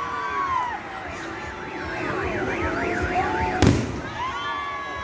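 Fireworks going off: whistling shells that glide in pitch, and one sharp bang about three and a half seconds in. In the middle a fast warbling alarm tone sounds for about a second and a half.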